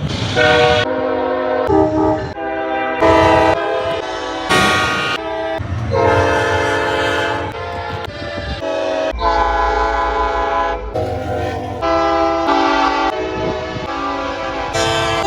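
Train air horns sounding a quick string of different chords, one blast cut abruptly into the next every second or so. A deep rumble runs under one longer blast about nine seconds in.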